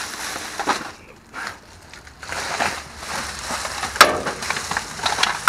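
Black plastic garbage bag full of snack packages rustling and crinkling as it is hauled out of a dumpster and set down, with a short lull about a second in and a sharp knock about four seconds in.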